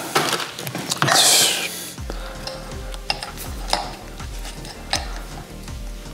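Plastic parts packet crinkling for about two seconds. Then quiet background music with a steady beat comes in, with sharp metallic clicks of long-nose pliers working inside the clutch master cylinder to pull out the old seal.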